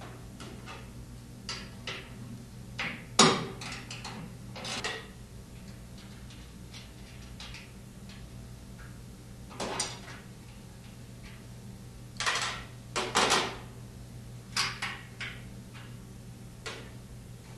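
Scattered metallic clicks and clanks of a wrench working the bolts that hold the bearing housing arms to a washer's steel outer tub. The sharpest clank comes about three seconds in and a quick run of clicks comes near the end, over a steady low hum.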